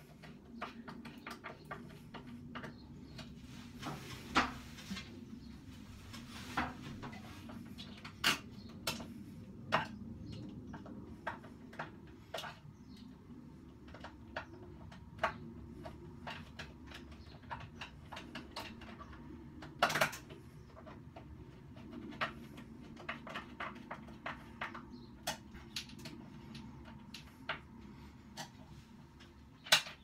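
Small clicks, taps and scrapes of a screwdriver and the plastic housing of a ceiling pull cord light switch as it is fixed in place, scattered irregularly, with a few sharper clicks, the loudest about twenty seconds in.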